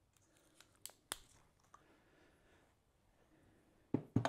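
Thread tape being pulled off its roll and wrapped around the threads of a small pipe fitting: faint rustling handling noise with a couple of sharp clicks about a second in, then two louder dull knocks near the end.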